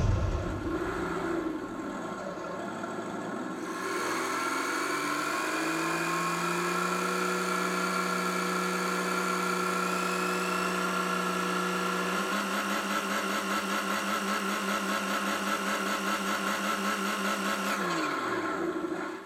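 Simulated engine sound from a scale RC Defender D110: the engine note rises as it starts, then idles steadily with a regular pulse. It steps up in pitch about two-thirds of the way through and winds down near the end.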